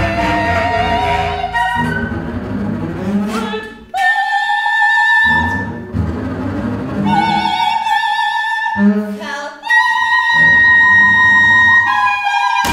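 Operatic soprano singing long, high notes with vibrato, several held notes with short breaks between them. A flute, a clarinet and a bowed double bass accompany her in a contemporary chamber-music setting.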